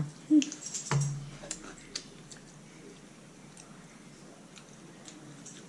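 Quiet eating sounds: faint chewing with small scattered mouth clicks, after a single sharp knock about a second in.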